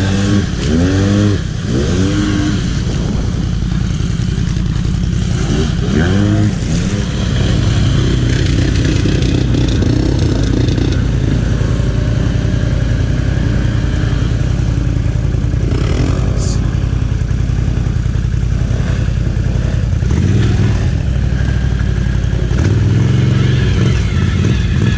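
ATV engine revving up and down a few times in the opening seconds, then running at a steady, heavy throttle.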